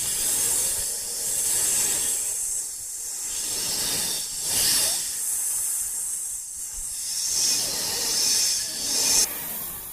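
A hissing noise sound effect, like escaping steam or air, that swells and eases several times, its top end cutting off suddenly near the end.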